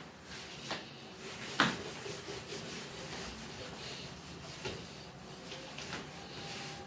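Felt duster wiping across a whiteboard: a soft, steady rubbing broken by a few light knocks, the sharpest about a second and a half in.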